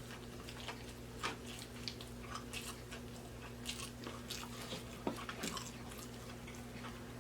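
Close-miked chewing and lip-smacking on a stacked burger, fish and chicken sandwich: soft, wet chews and small mouth clicks at an uneven pace.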